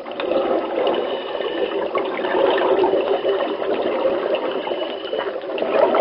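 Underwater diving sound effect: a steady churn of water noise, as heard while swimming beneath the surface.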